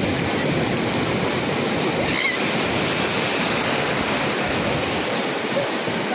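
Sea surf breaking and washing around in the shallows as a steady rush of water. A brief, faint high squeak comes about two seconds in.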